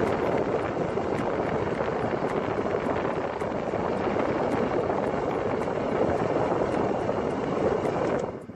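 The cabin heater/AC blower fan of a Suzuki Alto 800 runs loud, a steady rush of air. It cuts off abruptly near the end as the fan-speed knob is turned off.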